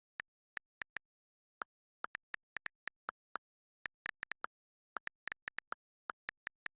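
A run of short, sharp clicks at an uneven pace, several a second and sometimes in quick pairs, with dead silence between them.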